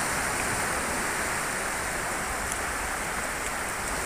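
Shallow surf washing up the sandy beach: a steady, unbroken rushing hiss.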